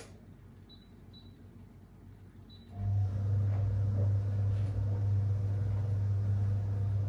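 Whirlpool 3RLSQ8033SWD top-loading washer: a click at the start, then a little under three seconds in the motor switches on and runs with a steady low hum. This is a burst of the slow agitation that the owner takes for a soak phase of the delicate cycle.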